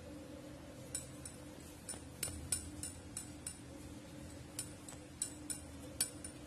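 A dozen or so light, sharp clicks and clinks at irregular intervals over a faint steady hum.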